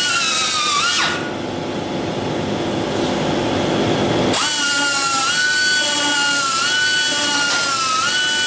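Right-angle die grinder whining at high speed, its pitch dipping each time it is pressed into the truck's sheet metal. About a second in the whine winds down and gives way to a lower, rougher noise, then comes back with a quick rise after about three seconds.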